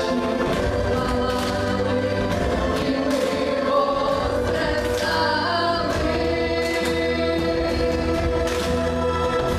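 A group of teenage girls singing a song together into microphones over amplified instrumental accompaniment with a steady bass line.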